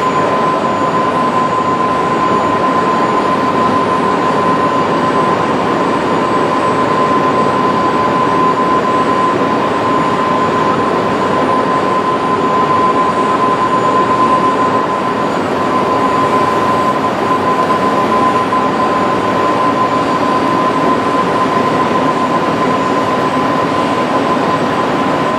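Milltronics ML CNC lathe running steadily through a thread repair pass, a constant machine hum with one steady high whine held throughout, as the threading tool follows the existing thread at slow spindle speed.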